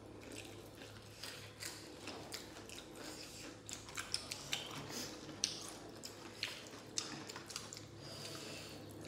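Close-up mukbang eating sounds: wet chewing and lip-smacking, a string of short sharp clicks that is busiest and loudest past the middle.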